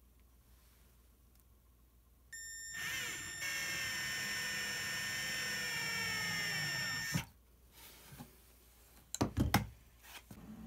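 Cordless drill driving a wood screw down through a plywood board into a wooden support leg: the motor whines steadily for about five seconds, its pitch slowly falling as the screw goes in, then stops abruptly. A few knocks follow near the end.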